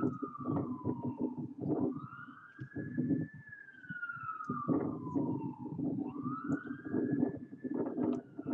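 An emergency vehicle siren wailing in slow sweeps: it rises quickly twice, about two and six seconds in, and falls slowly in between, over a choppy low noise underneath.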